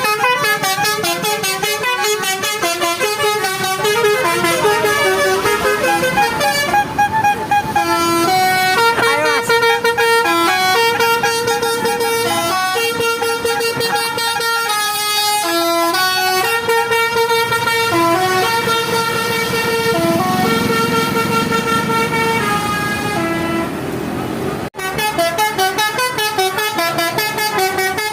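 Basuri multi-tone musical horn playing a tune in held notes that step up and down in pitch. It breaks off sharply about three-quarters of the way through, then starts again.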